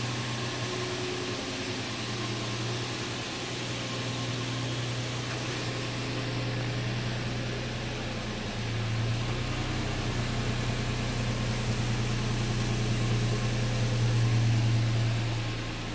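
A 2006 Nissan Xterra's 4.0-litre V6 idling steadily, its exhaust note getting louder in the second half.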